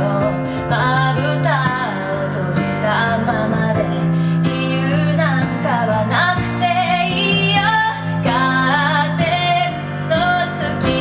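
A woman singing a Japanese pop ballad while accompanying herself on piano, with sustained chords under the melody.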